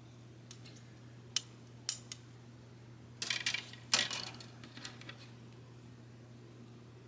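Small plastic model-kit parts clicking and clattering as they are handled and snapped together: two sharp clicks about a second and a half and two seconds in, then a quick run of clicks and rattling around three to four seconds in. A steady low hum sits underneath.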